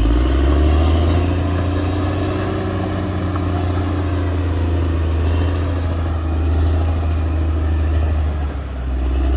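Caterpillar D6R XL bulldozer's diesel engine running steadily with a deep, even drone, easing briefly near the end.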